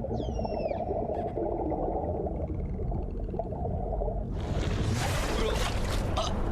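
Underwater soundscape: a steady low rumble with a gliding whale-like whistle call in the first second and a brief run of clicks, then a rush of bubbling, swirling water from about four seconds in.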